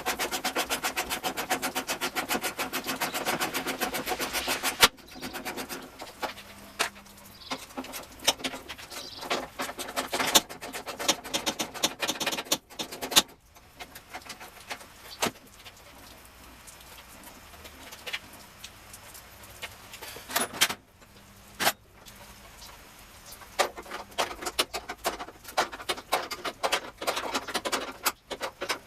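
Ratchet wrench clicking rapidly and evenly for about the first five seconds while fender bolts are worked loose. After that come scattered metal clicks, clinks and knocks of tools and hardware.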